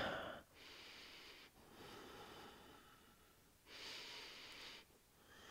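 Faint, slow breathing held in a yoga pose: three or four long, even breaths with short pauses between them.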